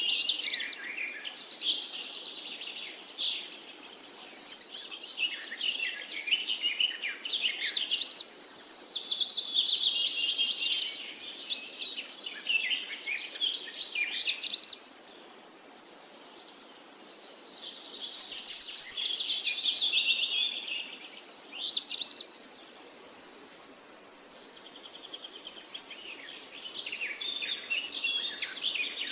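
Bird song: a continuous stream of rapid chirps and trills that sweep up and down in pitch, mixed with short held high whistles. It eases off briefly about two-thirds of the way through.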